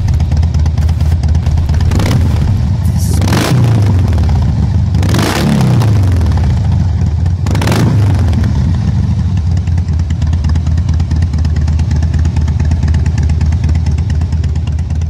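Several motorcycle engines running at idle in a group, with a few short loud revs, a second or two apart, whose pitch drops away afterwards.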